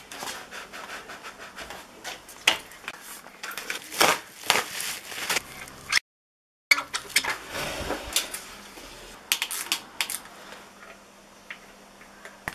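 Handling sounds of assembling a mountain e-bike: irregular clicks, scrapes and rubbing of parts and tools, cut off by a brief silent gap about six seconds in.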